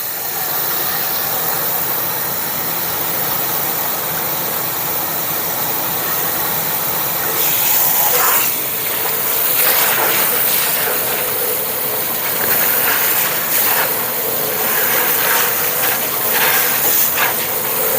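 Water spraying steadily from a hose into the bottom of a furnace, rinsing mud out of it; from about halfway in, the spray turns harsher and more uneven as it moves over the metal.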